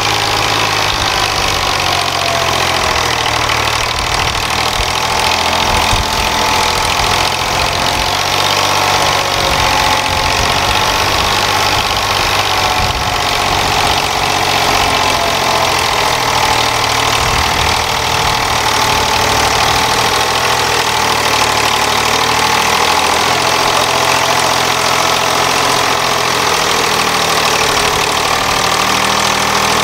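Eicher 485 tractor's three-cylinder diesel engine running under heavy load while pulling a trailer heaped with soil, so loaded that the front wheels lift off the ground. The engine note is steady and loud, rising and falling slowly in pitch.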